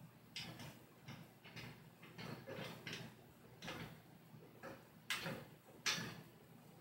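Light, irregular metallic clicks and taps from a wire shelf and metal frame being handled and fitted together, with two sharper clicks about five and six seconds in.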